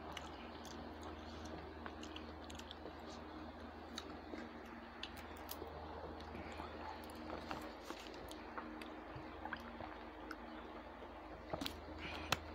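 Close-up eating sounds: chewing and small mouth smacks, with fingers mixing rice on plates, as many scattered soft clicks over a steady low hum.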